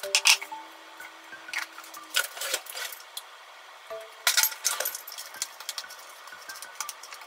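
Kitchen handling clatter: light clicks and knocks of containers and a seasoning bottle handled on the counter, with a busy run of clicks about four seconds in, then a wooden utensil mixing spinach and takuan pickles in a plastic food container. Soft background music notes underneath.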